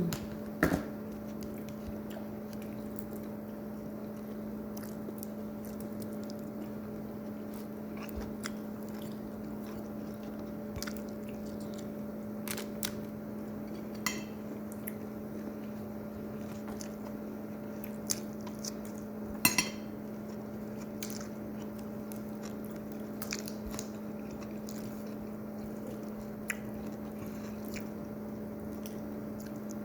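People chewing food, with scattered clicks of cutlery and dishes, the loudest a quick pair about two-thirds of the way through, over a steady low electrical hum.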